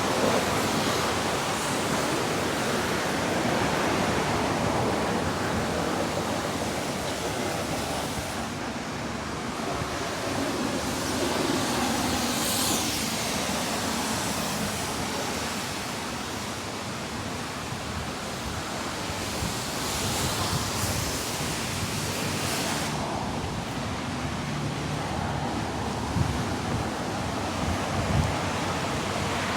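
High-pressure water spray at a car wash: a steady rushing hiss that swells and eases a little.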